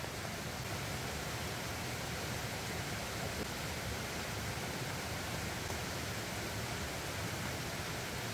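Steady water noise, an even hiss with no breaks and no distinct drops or splashes.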